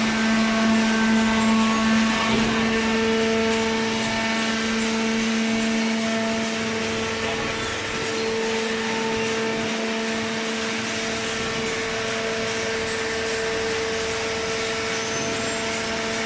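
Hydraulic cardboard baler running: a steady motor-and-pump whine over mechanical noise, its main tone stepping up in pitch about three seconds in.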